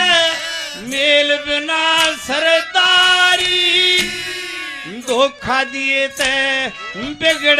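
A man sings a Haryanvi ragni through a PA system, drawing out long held notes, with drum strokes behind the voice.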